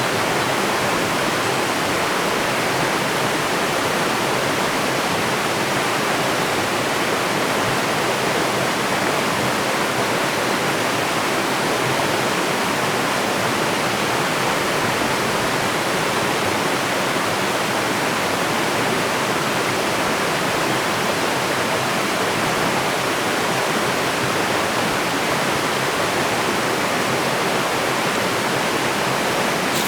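Waterfall water falling in a steady, unbroken rush.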